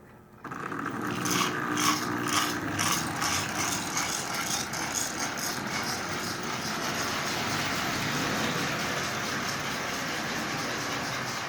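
Toy electric train running on track, its two coupled Lionel mechanical Sound of Power tenders making a rushing chuff along with a motor and wheel rattle. It starts about half a second in, and the chuff pulses come faster as the train gathers speed until they blend into a steady sound.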